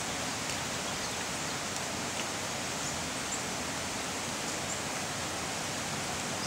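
Steady, even outdoor background hiss with no distinct event, and a few faint high ticks now and then.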